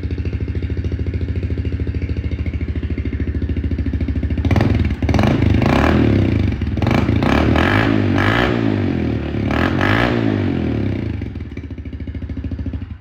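Honda CRF110F pit bike's small single-cylinder four-stroke engine, fitted with an FMF Powercore 4 slip-on muffler. It idles steadily, then is revved in a string of quick throttle blips for several seconds and settles back to idle near the end.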